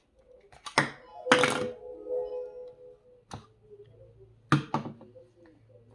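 Plastic toy blocks knocking and clacking onto a LeapFrog LeapBuilder sound-block house, several sharp knocks, with the toy giving a short electronic tone for a second or two after the second knock.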